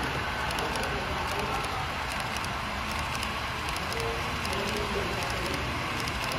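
Model train running on the layout track: a steady rumble with a faint rapid ticking of the wheels.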